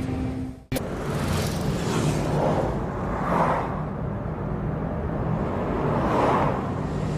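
A steady low rumble under several whooshing swells that rise and fade every second or few, after a sudden cut about a second in.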